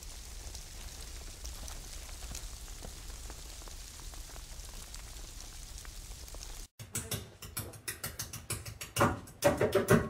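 A steady crackling hiss like rain that stops abruptly about two-thirds of the way in. The song's intro then starts with quick, even, scratchy guitar strums, and full guitar chords ring out near the end.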